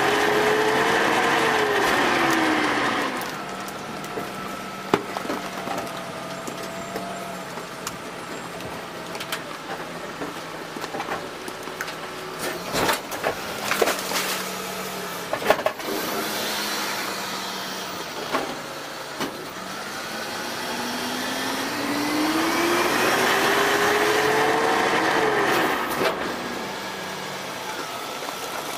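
DaDee Scorpion automated side loader garbage truck working its hydraulics. The engine is revved and whines as the packer blade sweeps the hopper, then winds down. While it idles more quietly, a cart is tipped in, with clunks and thuds of falling trash about halfway through. The engine then revs again with a rising whine for the next packing stroke, easing off near the end.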